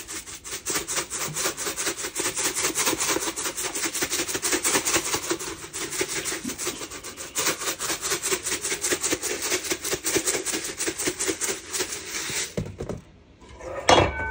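Dried minced onion being shaken from a spice shaker into a pot: a fast, even rattle that stops near the end. It is followed by a sharp metallic clink.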